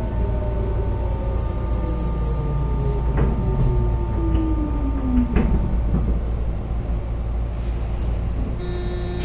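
Tobu 9000 series chopper-controlled electric train car heard from inside while braking at low speed. A motor tone falls steadily in pitch and dies away about five seconds in, over the car's steady chopper tones and running rumble, with a few sharp clicks from the wheels and rails. At low speed in summer this car's chopper sound changes to resemble a Hankyu 2200 series chopper car or a JR 201 series.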